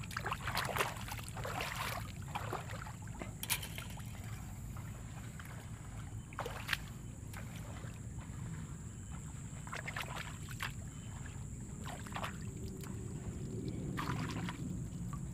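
Wire scoop basket worked through shallow muddy water among freshwater clams, with irregular splashes and squelches, over a steady low rumble and a constant high-pitched whine.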